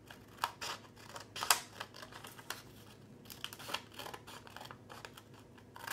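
Scissors cutting through paper in a series of short, sharp snips at an uneven pace, the loudest about a second and a half in.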